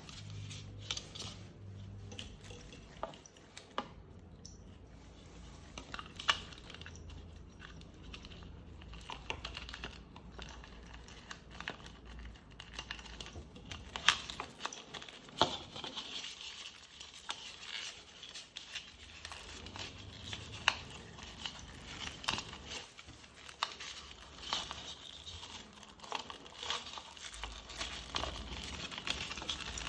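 Hands working on small motorcycle parts: scattered light clicks and taps with rustling and crinkling, with a few sharper knocks along the way.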